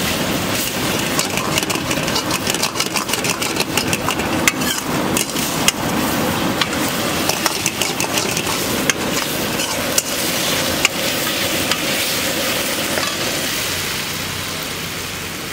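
Steel ladle scraping and clanking against a steel wok as Manchurian balls are stirred and tossed in sauce, over a steady frying sizzle. The clanks come thick and fast at first and die away near the end as the stirring stops.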